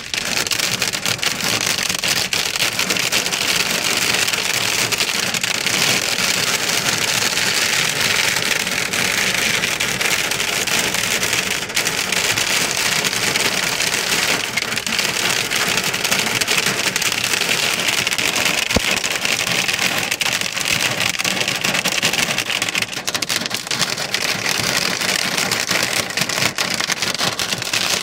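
Hail mixed with rain drumming on a car's roof, bonnet and windscreen, heard from inside the cabin: a loud, steady, dense clatter of ice pellets.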